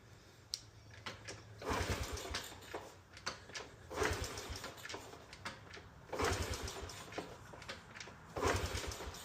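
2007 Honda CT110's single-cylinder engine being kick-started on choke: four kicks about two seconds apart, each a brief burst of rapid cranking and firing pulses. This is the first start after a new cam chain and tensioner were fitted.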